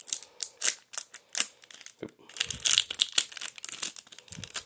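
Foil wrapper of a Bakugan trading-card booster pack crinkling and tearing as it is ripped open and the cards are pulled out: a quick run of crackly rustles, densest about halfway through.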